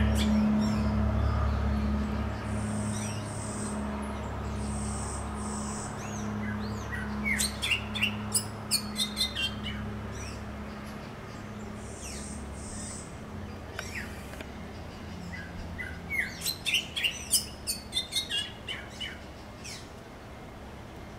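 Greyish saltator singing: two bouts of quick, sliding notes, one about seven seconds in and another around sixteen seconds in, each a run of about ten notes, over a steady low hum.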